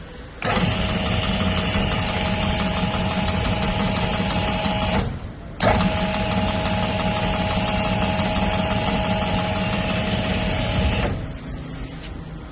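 3 HP high-pressure washer's electric motor and pump running steadily with a hum and a hiss of spray. The running sound drops away briefly three times: at the start, about five seconds in, and for just over a second near the end.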